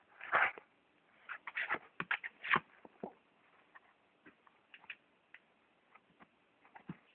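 Cat moving about in a cardboard box, short scratchy rustles and scrapes in quick clusters during the first three seconds, then scattered light ticks and taps.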